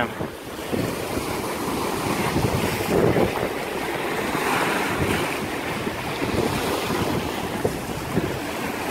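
Strong squall wind gusting and buffeting the microphone: a loud rushing noise that swells a little now and then.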